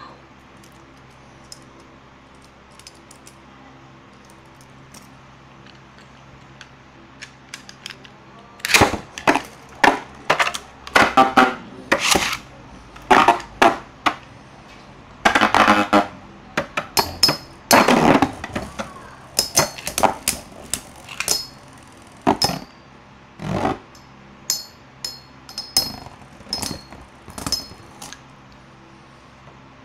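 Two Takara Tomy Metal Fight Beyblade tops clashing in a plastic bowl arena. From about nine seconds in they strike each other and the bowl's wall in a rapid, irregular series of loud metallic clacks and clinks, some with a faint high ring. Before that there is only a low steady hum.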